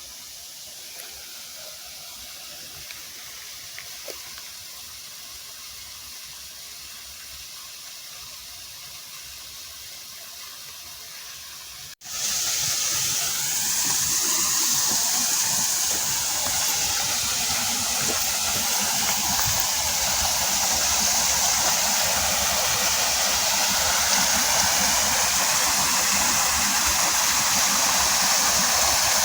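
Faint steady rushing of water, then about twelve seconds in a sudden cut to the loud, steady rush of a waterfall.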